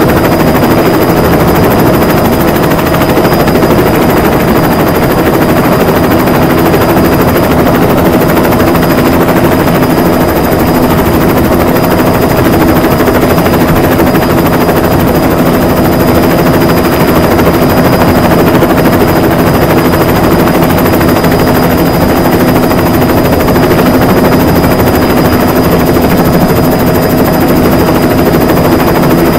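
A diesel vehicle engine droning steadily at a constant speed, with a thin steady high whine above it.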